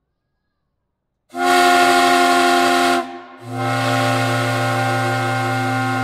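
Lunkenheimer No. 3 three-chime steam whistle branch (5-, 6- and 8-inch bells), blown on compressed air, sounds a loud, steady multi-note chord starting about a second in. It breaks off briefly about three seconds in, then resumes with a deeper note added, draining the air compressor tank.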